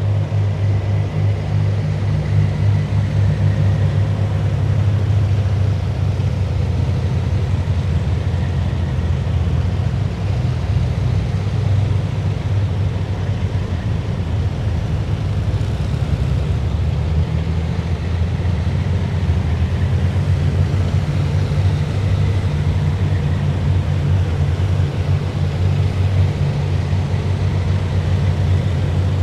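A column of heavy military vehicles driving past, their engines making a steady, continuous low rumble.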